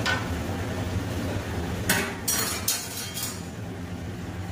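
A few knocks and clinks against a stainless-steel kitchen sink, bunched together about two to three seconds in, over a steady low hum.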